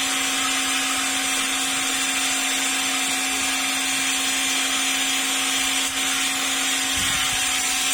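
Temperature-controlled hot air blower running steadily: an even rushing hiss with a constant hum underneath.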